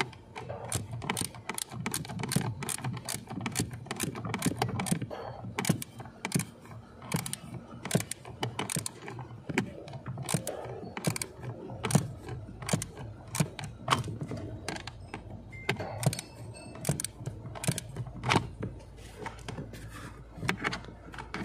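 Irregular small clicks and rattles of a replacement blower motor resistor being fitted by hand under a dashboard, fingers turning its small mounting screws and handling the plastic part.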